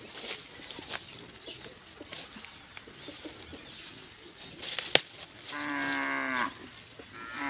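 A large farm animal mooing twice in the second half. Each call lasts about a second and falls in pitch, and the second runs on past the end. A sharp snap comes just before the first call, over faint ticks and rustles from grass being cut.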